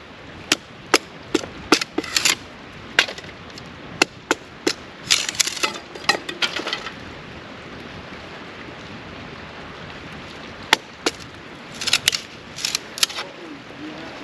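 Irregular sharp cracks and snaps of wood, some single and some in quick clusters about five seconds in and again near the end.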